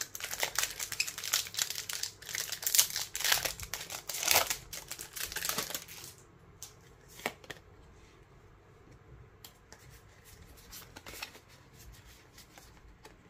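Foil wrapper of a Pokémon card booster pack being torn open and crinkled for about six seconds. After that, fainter scattered clicks and rustles of the cards being handled and sorted.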